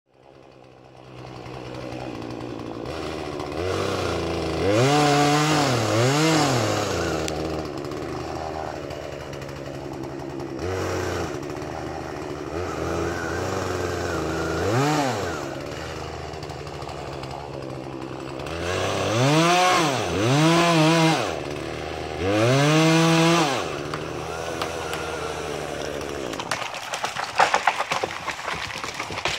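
Two-stroke chainsaw running and revved hard several times, its pitch climbing and dropping with each squeeze of the throttle. About three seconds before the end the saw stops and a quick run of sharp cracks and snaps follows, as of wood breaking as the tree gives way.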